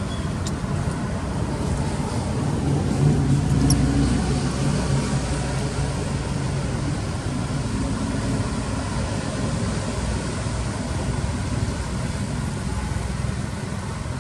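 Steady rumble of road traffic, with a motor vehicle passing and growing louder about three seconds in.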